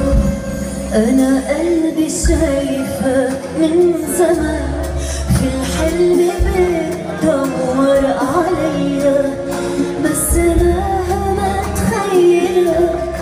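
A woman singing an Arabic pop song live into a microphone, with band accompaniment underneath.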